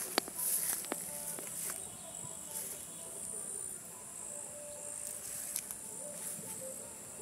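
Insects chirping in a steady high-pitched chorus across the paddy, with a few sharp clicks over it.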